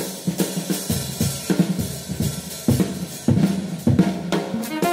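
Background music: a drum kit playing a busy beat, with snare, kick drum, hi-hat and cymbals.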